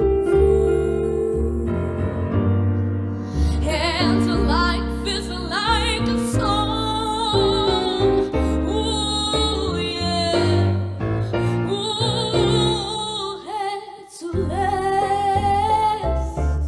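A young female singer performing live into a microphone, sustaining long notes with a wide vibrato, over instrumental accompaniment of steady held chords.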